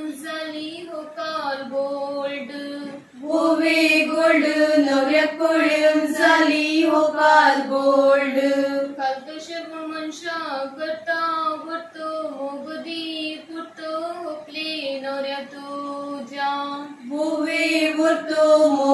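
A small group of women singing a Konkani voviyo together in unison, without instruments, in a slow chant-like melody with long held notes. The singing swells louder about three seconds in.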